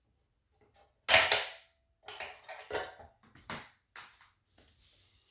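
Metal parts of a panic exit device clattering and knocking as they are handled and set down: one sharp clank about a second in, the loudest, followed by several lighter knocks.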